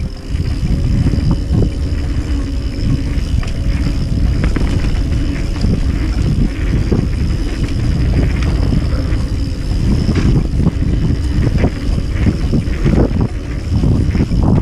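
Mountain bike riding fast down a dirt trail, heard from a camera on the bike or rider: a steady rumble of wind buffeting the microphone and tyres rolling on dirt, with frequent knocks and rattles as the bike goes over bumps.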